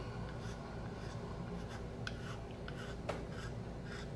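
Short, light strokes of a flat hand file scraping a briar pipe shank at an uneven pace, with one sharper tick about three seconds in. The file is taking down a tiny ridge so the shank sits flush with the stem.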